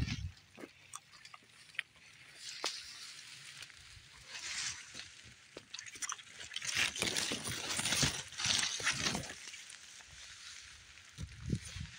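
Leaves and branches of dense berry bushes rustling and brushing against the phone as someone pushes through the brush. The rustling swells about four seconds in and again for a few seconds past the middle, with a few sharp clicks.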